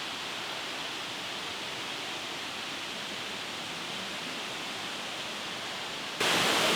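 Steady rush of a waterfall, an even hiss of falling water, that becomes abruptly louder about six seconds in.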